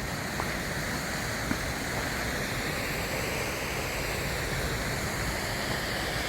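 Waterfall rushing steadily, with a couple of faint clicks in the first two seconds.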